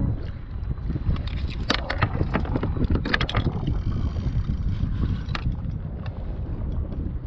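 Wind buffeting an action-camera microphone over choppy sea, with water washing against a plastic kayak hull. A few sharp clicks and knocks come through, about a second and a half in, again around three seconds in, and once more near five seconds.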